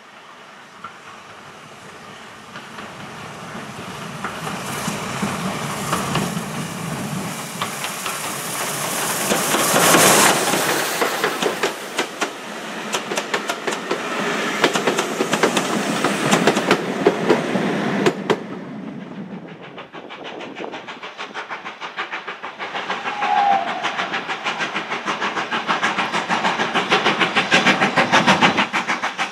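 Steam locomotive hauling a passenger train approaches and passes close by, loudest about ten seconds in, followed by the coaches' wheels clicking rapidly over the rail joints. Then a second steam locomotive approaches working hard, its fast regular exhaust beat growing louder.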